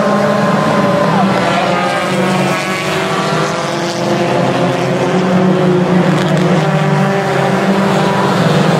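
Several stock car engines running at once as the pack laps the track, their notes overlapping and rising and falling in pitch.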